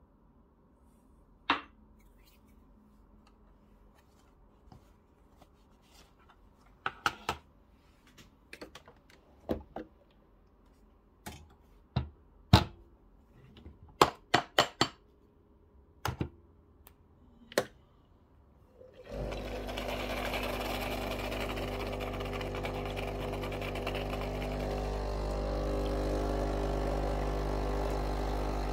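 Sharp clicks and knocks of metal coffee tools being handled. About two-thirds of the way in, the Breville Barista Pro espresso machine's pump starts and runs with a steady, loud hum.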